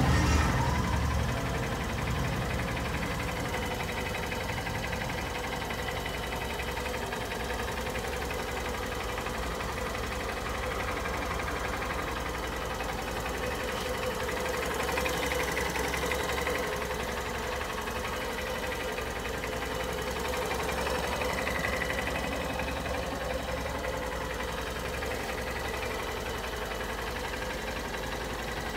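Honda CB125F's air-cooled 125 cc single-cylinder four-stroke engine idling steadily. It is a little louder for about the first second, then settles to an even idle.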